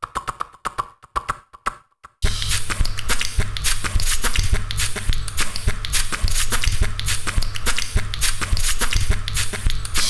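Homemade animation soundtrack: choppy, stuttering sounds with short gaps for about two seconds, then a dense run of rapid clicks and hiss over a steady low hum.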